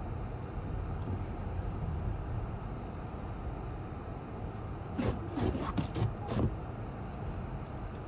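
Steady low vehicle rumble of engine and road noise, heard from inside a car's cabin. About five seconds in, a quick run of five or six sharp clacks or knocks comes within a second and a half.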